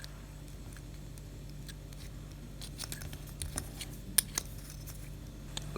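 Small sharp clicks and light scraping of plastic parts being worked with a small awl as the cabin air temperature sensor's fan motor is eased out of its housing. The clicks come more often after about two and a half seconds, the loudest about four seconds in, over a low steady hum.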